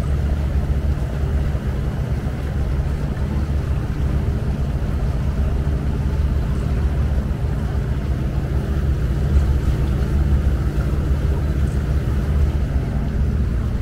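Inboard diesel engine of an abra water taxi running at a steady cruise, a constant low drone.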